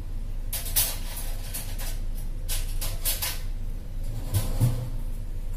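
Kitchen utensils clattering in a few short bursts over a low steady hum.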